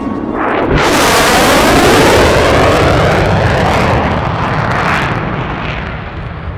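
Lockheed Martin F-35 Lightning II's single Pratt & Whitney F135 engine in afterburner on a fast flyby: a jet roar that swells about a second in, peaks with a sweeping, phasing hiss, then fades as the jet flies away.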